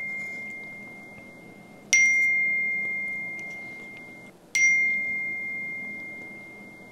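Smartphone text-message notification chime, each a single clear ding that fades slowly: one about two seconds in and another a little before five seconds, with the tail of an earlier one fading at the start. They announce incoming texts on the phone lying on the table.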